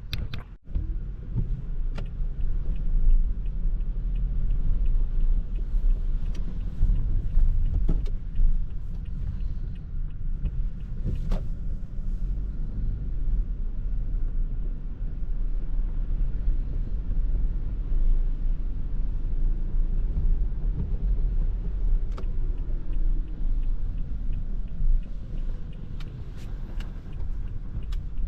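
Toyota Prius α hybrid wagon driving on a wet road: a steady low road and tyre rumble, with scattered sharp clicks now and then.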